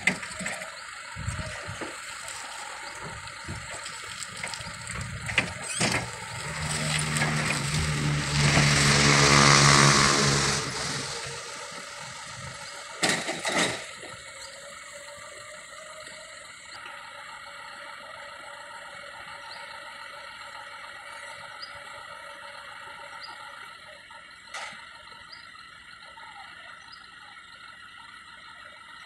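Toyota forklift running as it carries a pallet away from the truck: its engine and hydraulics get louder, peak about nine to ten seconds in, then fade as it drives off. A little later come two short loud knocks, then a steady background hum.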